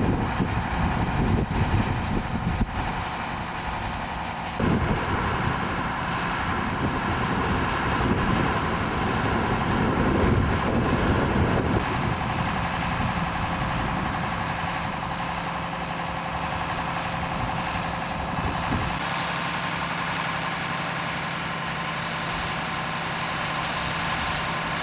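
Diesel engines of a 'Red Hen' railcar idling steadily at a standstill.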